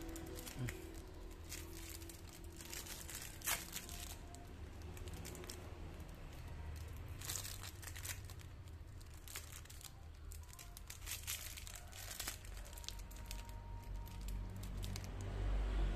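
Clear plastic wrapping crinkling and tearing as it is peeled off by hand, in irregular crackles, with one sharper crack about three and a half seconds in.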